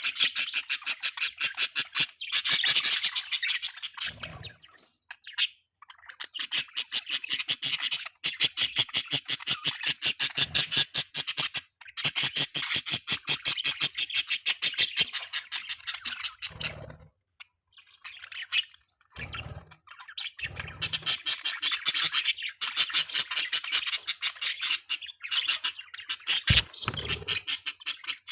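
Budgerigars chattering in long bouts of rapid, high chirps and squawks, broken by a few short pauses. There are a few brief soft low thuds along the way.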